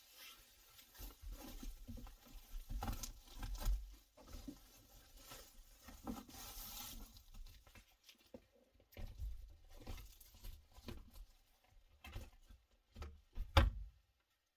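Rustling and crinkling of reflective insulated window covers being handled and pressed into a car's windows, with scattered soft knocks and one sharper knock near the end.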